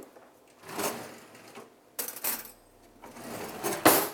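Knife cutting a lemon on a cutting board: a few sharp knocks and scraping sounds, the loudest knock near the end.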